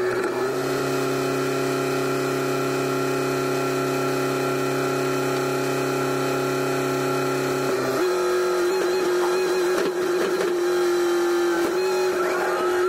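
SkyTrak telehandler's diesel engine running at a steady speed with its hydraulics whining as the boom lowers a load of steel building beams. About eight seconds in, the note changes: the deeper part drops away and a single higher tone carries on.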